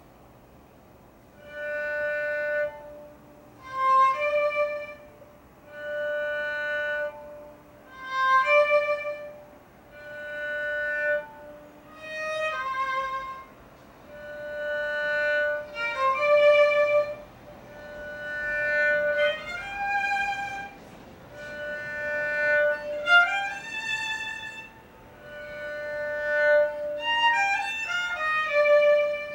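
Kamancheh, the bowed Persian spike fiddle, playing solo: slow phrases of held notes about every two seconds, each swelling and fading away. Sliding ornaments between the notes grow busier over the last ten seconds.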